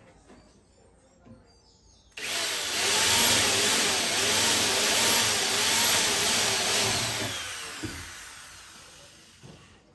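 Cordless drill running into the car's sheet-metal body panel. It starts suddenly about two seconds in, runs steadily for about five seconds, then fades away over the last couple of seconds.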